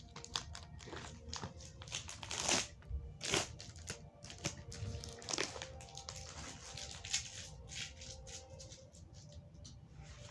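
Mail package being cut and torn open by hand: irregular crinkling, rustling and tearing of the packaging, with the loudest tears about two and a half and three seconds in.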